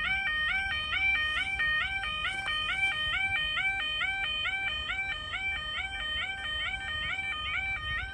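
Automatic half-barrier level crossing alarm sounding: a continuous electronic two-tone warble that alternates rapidly between a higher and a lower pitch, warning that a train is approaching.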